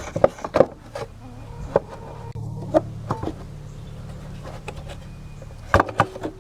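Clicks and knocks of the engine's sheet-metal housing being worked loose and lifted off, a few scattered taps with a pair of sharper knocks near the end, over a steady low buzz.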